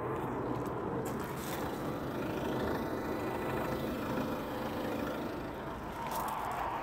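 Steady vehicle rumble mixed with outdoor background noise, with a few faint knocks.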